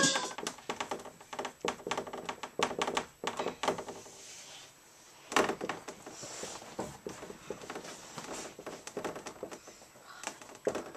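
Dry-erase marker writing on a whiteboard: a run of short taps and scratchy strokes, with one sharper tap about five seconds in.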